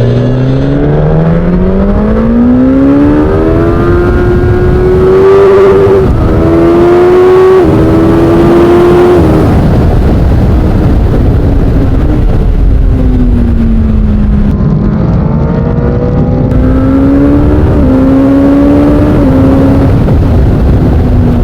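Suzuki GSX-S1000's inline-four engine through an SC-Project exhaust, pulling hard through the gears: the note climbs and drops back at each upshift, three shifts in quick succession, then the revs fall away as the throttle is eased before it pulls again with two more shifts. Wind rush runs under the engine throughout.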